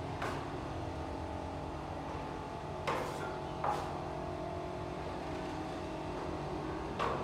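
A machine running with a steady low hum, with a few short sharp knocks about three seconds in, again just after, and near the end.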